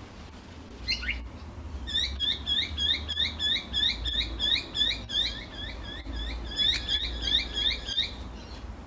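A small bird calling: one call about a second in, then a rapid, even run of short upswept chirps, several a second, for about six seconds.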